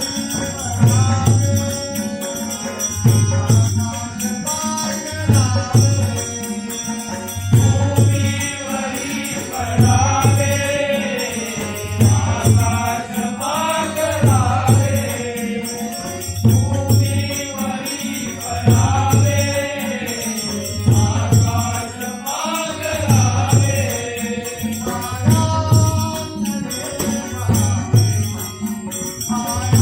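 Marathi abhang sung in a devotional bhajan, a solo voice with gliding, ornamented phrases. A drum beats steadily about once a second, with jingling percussion.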